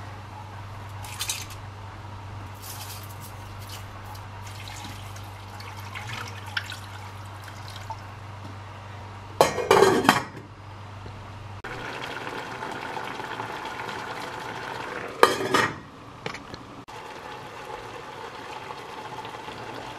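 Stainless steel cooking pot and lid being handled: light clinks, then a loud metallic clatter about ten seconds in as the lid is set on the pot, and another sharp clatter about five seconds later.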